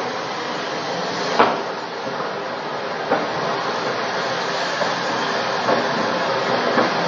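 Steady rushing noise of a large gas-fed fire at a gas station, with a sharp pop about a second and a half in and a few fainter pops later.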